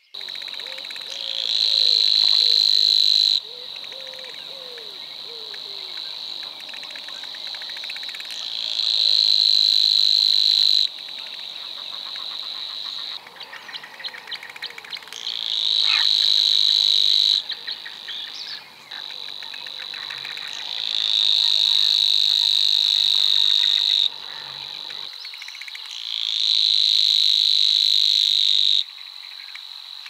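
Savi's warbler singing its reeling song: five long, fast, even trills of two to three seconds each, swelling in and stopping abruptly.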